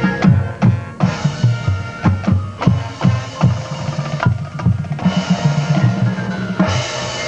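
Marching band playing, with drums and bass drums striking many sharp accents over low sustained tones.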